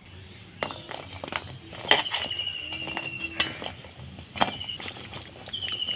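Metal slotted spoon clinking against aluminium cookware as freshly fried sweet-potato langchas are tipped from it into a bowl of sugar syrup: about five sharp clinks, some with a short ringing after them.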